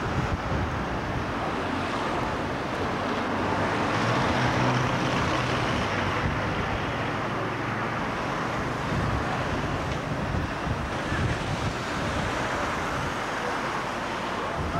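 Road traffic: cars driving past on a busy street, a steady wash of engine and tyre noise, with wind buffeting the camcorder's microphone.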